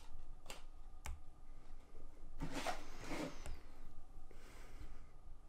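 XILETU tripod being handled on a table: two sharp clicks from its parts in the first second, then a longer scraping, rustling handling noise around the middle.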